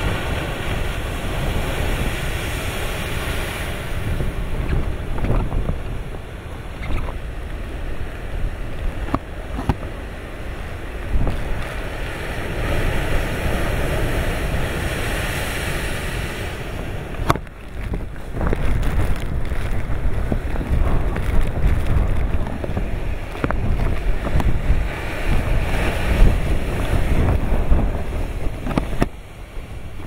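Typhoon wind buffeting the microphone with a heavy rumble, over large storm waves breaking and surging in foam against a rocky sea cliff. The surf swells and eases in waves, with one sharp click partway through.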